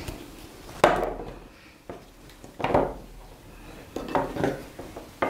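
A bucky briar and willow basket frame being handled on a wooden tabletop: a sharp wooden knock about a second in, then a few softer knocks and rustles as string is tied across the hoop.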